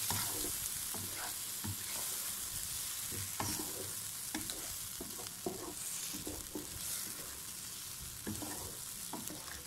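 Boiled potato chunks in tomato and tamarind paste sizzling in oil in a nonstick wok on medium flame, with a steady hiss. A wooden spatula scrapes and knocks against the pan at irregular intervals as the potatoes are stirred and fried.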